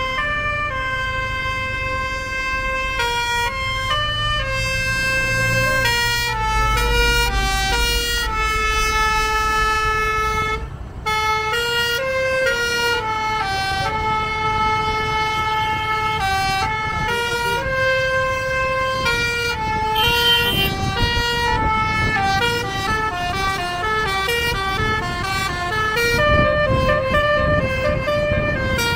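A bus's basuri musical air horn playing a melody in held notes that step from pitch to pitch, with vehicle rumble underneath.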